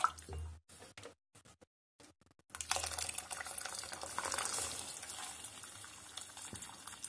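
Hot water from an electric kettle poured into a steel pot of lentil soup: a steady splashing pour begins about two and a half seconds in and runs on. Before it there are a few brief stirring sounds from a wooden spoon.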